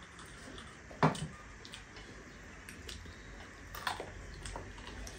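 Eating sounds: chewing and mouth clicks as buffalo leg meat is bitten and eaten by hand. There is a sharp click about a second in and another near four seconds.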